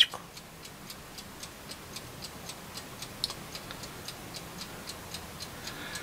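Faint, regular ticking at about four ticks a second over a low steady hiss.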